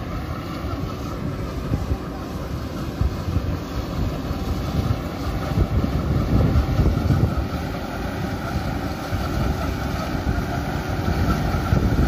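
Maxxi Bimo rice combine harvester running steadily as it cuts rice, its engine and threshing drone growing gradually louder as it comes closer. Wind rumbles on the microphone.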